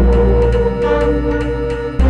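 Background music: sustained low synth-like notes with a steady ticking beat, changing chord near the end.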